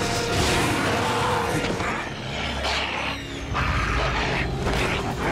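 Loud, dense fight-scene sound effects of a struggle with a snarling werewolf in human form: scuffling and hits in a noisy mix.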